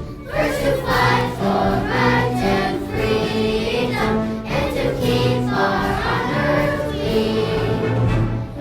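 Children's choir singing with musical accompaniment.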